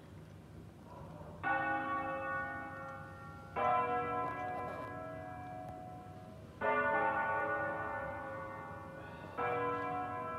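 Church bells of the basilica of Sant'Alessandro in Colonna sounding in a solemn bell concert: four strokes two to three seconds apart, each ringing on and slowly fading before the next.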